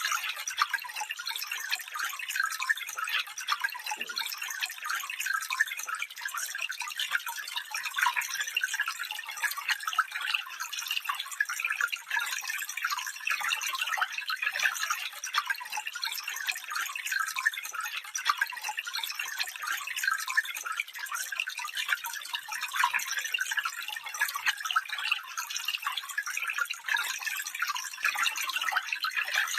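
Small stream of water trickling and babbling steadily, a bright splashy patter with no deep rush.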